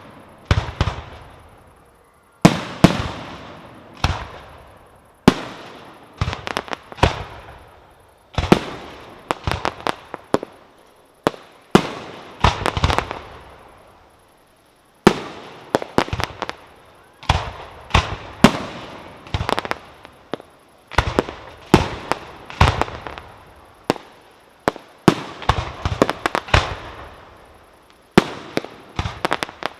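Fireworks display: aerial shells (ball shells fired from mortars) bursting in quick, irregular succession, sharp loud bangs sometimes in clusters of several within a second, each trailing off in a fading echo.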